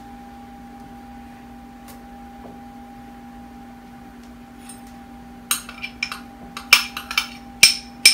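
A metal spoon clinking against a bowl and pot: a quick run of sharp, ringing clinks starting about five and a half seconds in, over a steady low hum.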